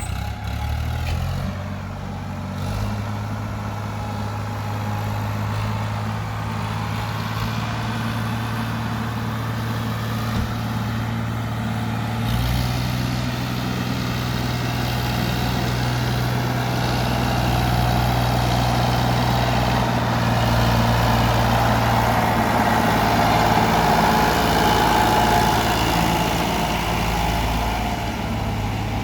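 Diesel engine of a JCB backhoe loader working while loading mud, its steady drone stepping up in pitch about a second in. The engine note grows louder and busier towards the latter half.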